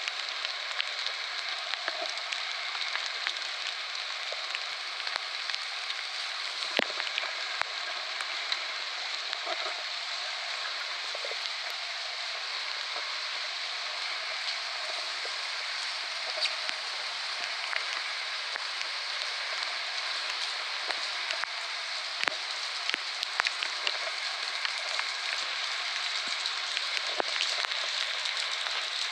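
Steady rain falling on grass and garden plants, a continuous even hiss with scattered sharp ticks of single drops.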